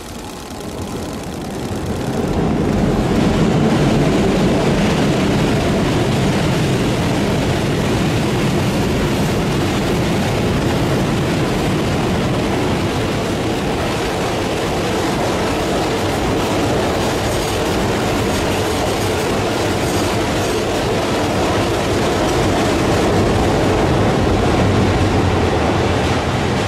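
JR East E653 series electric multiple unit passing, its wheels rolling over the rail joints and points. The running noise builds about two seconds in and then holds steady.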